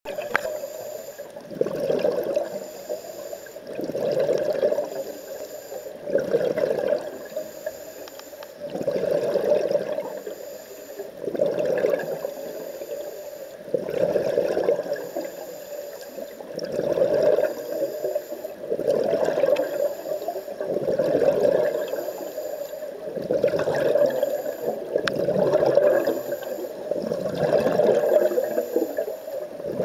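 Scuba diver breathing through a regulator: bubbling, hissing surges of breath and exhaled bubbles, rising and falling about every two seconds, heard underwater.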